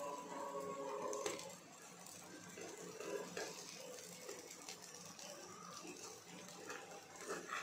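Slotted metal spatula scraping and knocking against a non-stick frying pan as egg-battered capsicum rings are turned, over faint frying. Background music plays for about the first second and a half and then stops.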